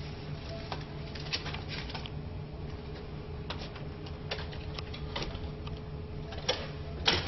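Light, scattered clicks and rattles of a hotel room's key-card door lock and metal lever handle as the card is inserted and the handle tried. The clicks come in small clusters over a steady low hum and grow thicker near the end.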